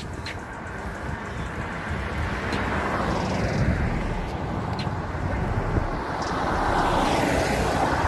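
Wind rushing over the camera microphone on a bicycle being ridden uphill, a steady rushing noise that swells louder about three seconds in and again near the end.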